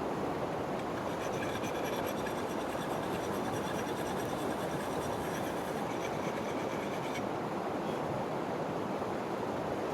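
Steady rush of a creek, with quick repeated scraping strokes of a hatchet edge on the coarse side of a two-sided abrasive from about a second and a half in to about seven seconds in.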